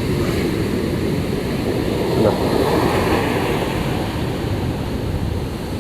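Sea surf on a sandy beach: a steady rush of waves, swelling slightly about two to three seconds in.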